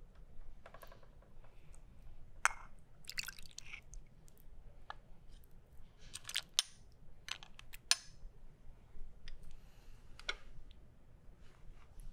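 Soup ladled from a porcelain bowl into a small porcelain cup: a metal ladle clinks and knocks against the porcelain several times, with liquid splashing and pouring.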